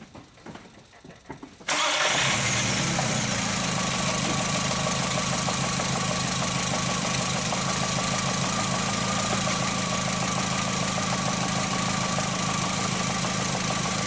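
2004 VW Jetta's 2.0-litre four-cylinder engine comes in abruptly about two seconds in and then idles steadily, with a faint steady whine. Number 3's plug wire is off the plug and on a test light, so that cylinder is not firing. The wire shows no spark, which fits the P0303 misfire on cylinder 3.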